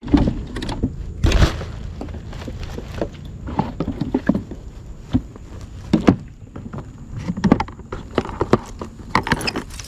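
Irregular knocks, clatter and rustling, over a steady high-pitched tone.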